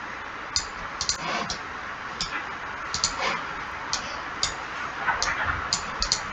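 Computer mouse clicking irregularly: about a dozen short, sharp clicks, some in quick pairs, over a steady low hiss.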